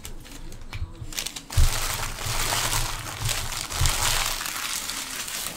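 Foil trading-card pack wrapper being crumpled in the hand. A sharp thump comes about a second and a half in, then a steady crinkling to the end.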